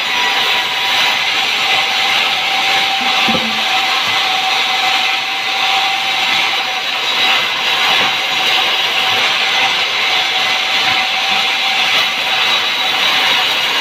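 Sawmill saw cutting timber: a loud, steady cutting noise with a constant tone underneath, unbroken throughout.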